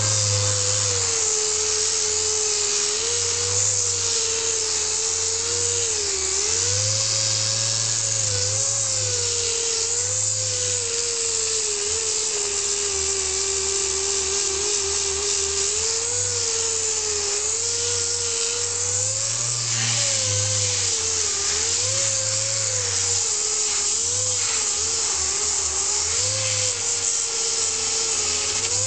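Grinder running continuously under load, its whine sagging and recovering in pitch as it is pressed into the car body, grinding thick body filler down to the metal of a factory body line.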